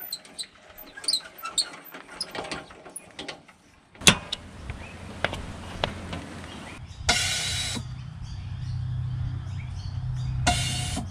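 Faint clicks and chirps, then about four seconds in a sharp click as the Airbag Man on-board air compressor starts. It runs with a steady low hum while inflating the rear airbags under the caravan's load. Two short bursts of air hiss come partway through.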